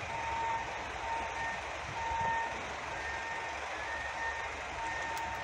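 A vehicle's reversing alarm beeping over and over, about one beep a second, over a steady hiss of background noise.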